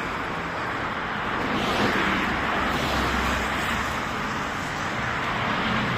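Road traffic noise: a steady rush of vehicles, with one passing more loudly about two seconds in.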